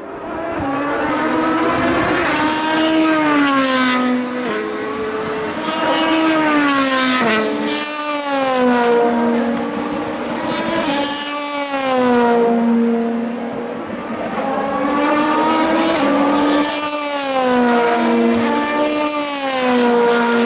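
Race cars passing one after another. Each engine's pitch drops in steps as it downshifts under braking into a corner, then climbs again as it accelerates away.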